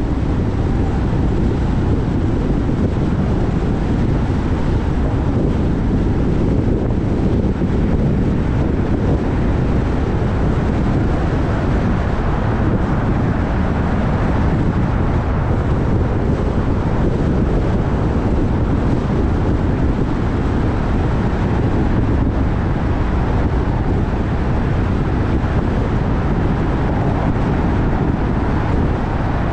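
Steady low rumble of a moving vehicle with wind noise, even and unbroken throughout.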